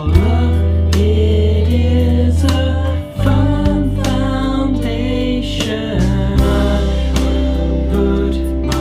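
Hymn singing with instrumental accompaniment over a sustained bass that changes note about every three seconds.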